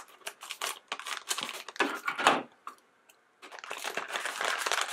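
Plastic blind-bag packet crinkling and rustling as it is snipped open with scissors and pulled apart by hand, in a run of short crackles with a brief lull about three seconds in.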